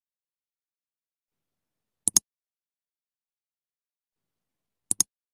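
Mouse-click sound effect of a subscribe-button animation: a quick double click about two seconds in as the Subscribe button is pressed, and another near the end as the notification bell is pressed, with dead silence between.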